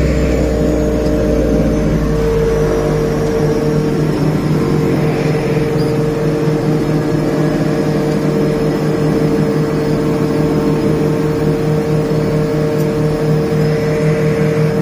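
Twin turboprop engines of a small commuter airplane running steadily on the ground, heard inside the cockpit: an even drone with a strong held tone over a low hum. The deepest rumble drops away about three seconds in.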